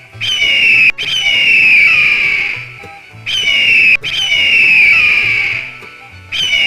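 Eagle screaming, a series of shrill calls that each fall in pitch, about five in a row.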